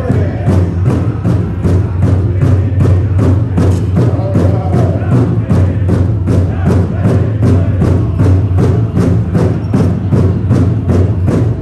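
Powwow drum group: a large drum struck in a steady, even beat of about three strokes a second, with singers' voices chanting over it.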